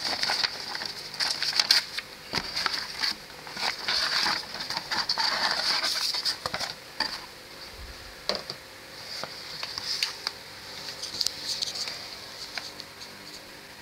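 Plastic-bagged model-kit parts, the paper instruction manual and the cardboard box rustling and crinkling as they are handled, with scattered clicks and taps. The handling is busiest in the first half and eases off towards the end.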